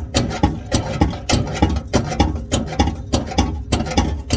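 Background music with a fast, steady drum beat and heavy bass, about three to four beats a second.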